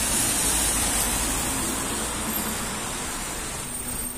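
A car driving past on wet asphalt, its tyres hissing on the soaked road, the hiss fading as it moves away.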